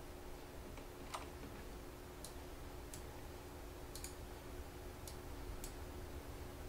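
Faint, irregular clicks of a computer mouse, roughly one a second, over a low steady hum.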